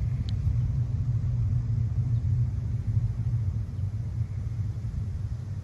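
Low, fluctuating outdoor rumble, with one brief high chirp just after the start.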